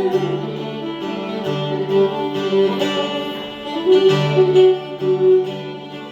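Instrumental passage: acoustic guitar strumming chords while a violin plays a held, gliding melody.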